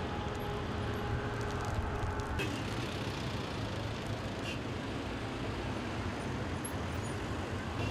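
Street noise of running vehicle engines and traffic with a steady low hum. About two and a half seconds in it changes abruptly to a denser rushing noise.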